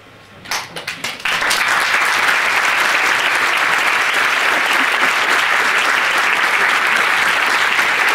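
Audience applauding: a few scattered claps about half a second in, swelling within a second into steady applause.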